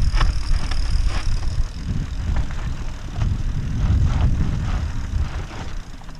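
Mountain bike rolling fast down dirt singletrack: wind rumbling on the camera microphone, tyres crunching over dirt and stones, and scattered clicks and rattles from the bike over bumps.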